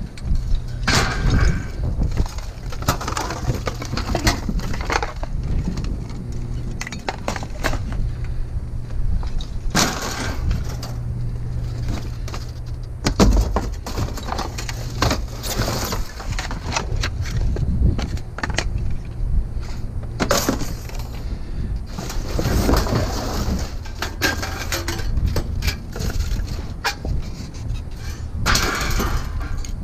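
Light fixtures and scrap being handled and broken apart in a dumpster, with repeated knocks, clatter and cracking of plastic and metal. A steady low hum runs underneath.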